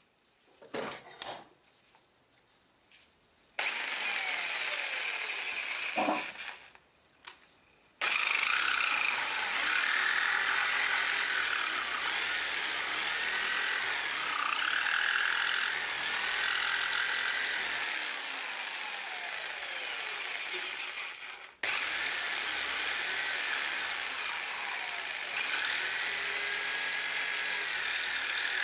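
Skil electric jigsaw cutting a wooden blank held in a bench vise, its motor pitch wavering as the blade works through the wood. After a few handling clicks it runs briefly, stops, then starts again and cuts steadily, cutting off for a moment about two-thirds of the way through before carrying on.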